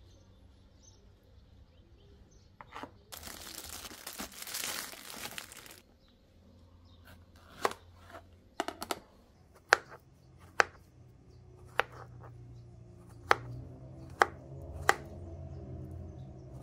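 Packaging rustling for about three seconds, then a knife chopping on a cutting board in slow, separate strokes, about one a second.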